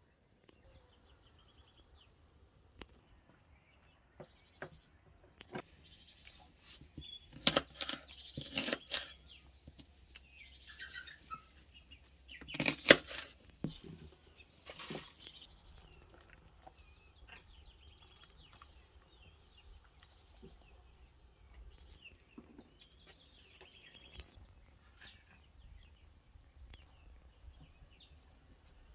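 Rural outdoor ambience with small birds chirping, broken by two clusters of sharp knocks and clatter, the loudest about halfway through.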